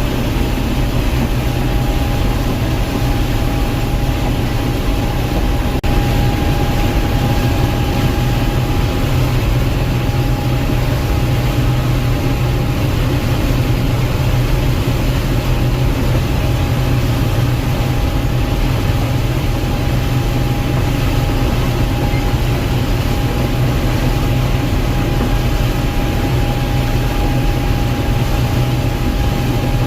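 Gleaner M2 combine running steadily while harvesting corn: a deep engine drone with a thin steady whine above it. A single click about six seconds in.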